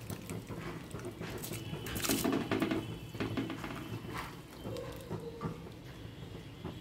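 Washed Gobindobhog rice and its water tipped from a steel bowl into a pot of boiled moong dal: irregular splashes and pattering as the grains and water drop in.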